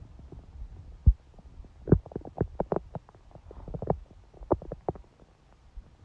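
A woman's stomach growling during menstruation: irregular runs of short gurgles and pops, busiest about two to three seconds in and again near the five-second mark, with a single low thump about a second in.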